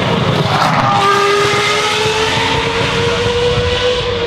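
Race car engine accelerating, its note climbing steadily for about three seconds over loud engine noise.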